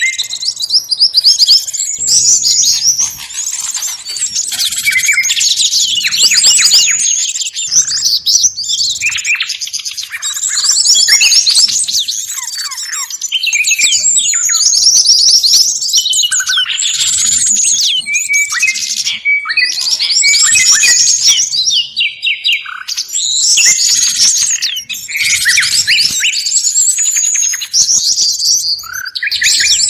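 Busy chatter of many small songbirds, rapid high chirps and trills overlapping without a break and swelling every few seconds. It is a bird-trapping lure recording mixing calls of flycatchers, tits, white-eyes and similar small birds, meant to draw wild birds in.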